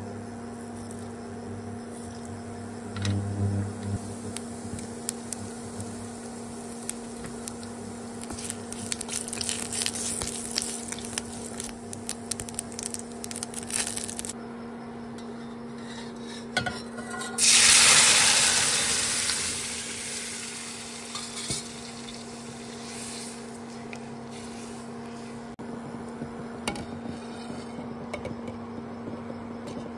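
Cumin seeds and whole spices crackling and sizzling in hot oil in a steel pan, with pan clinks. About halfway through comes a loud burst of sizzling as cooked toor dal meets the hot tempering, fading over a few seconds, over a steady low hum.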